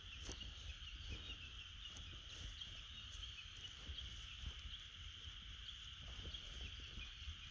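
Faint countryside ambience: a steady high chorus of outdoor animal calls, a low rumble and scattered soft knocks.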